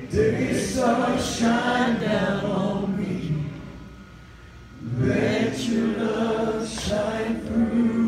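Voices singing a slow gospel song in harmony, with long held notes. The singing drops away for about a second midway, then comes back.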